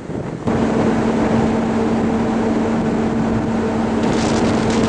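Steady low drone from the Interislander ferry over a rush of wind and water. It starts abruptly about half a second in and holds one even pitch.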